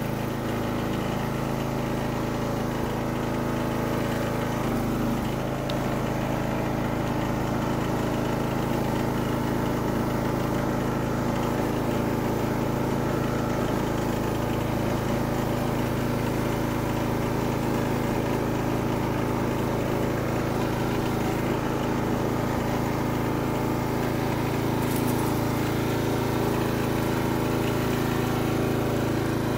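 Riding lawn mower's engine running steadily at an even pitch while the mower drives across the lawn.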